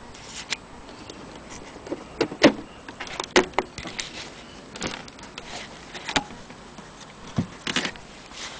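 Irregular clicks and knocks from handling an old Blaupunkt valve radio, its case and controls, with the loudest knocks about two and a half seconds in and again near three and a half seconds.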